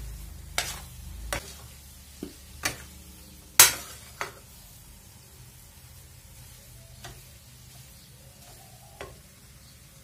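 A metal spoon stirring and scraping thick roasting besan laddu mixture in a steel frying pan, with irregular knocks of the spoon against the pan, the loudest about three and a half seconds in and fewer in the second half. A low hum stops about a second in.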